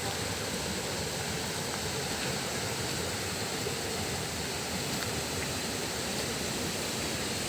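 Dudhsagar waterfall: a steady, even rush of falling water.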